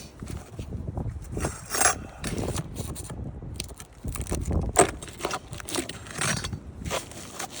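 Roof shingles being pried and scraped loose by hand, with several irregular scrapes, crackles and knocks.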